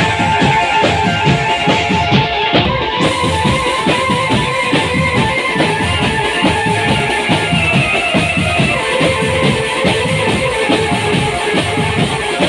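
Marching drum band playing: rapid, steady drum strokes under held melody notes.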